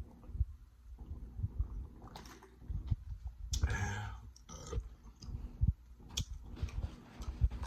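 Close-miked chewing: a person eating, with many soft, irregular mouth clicks and smacks and a louder stretch a little past halfway.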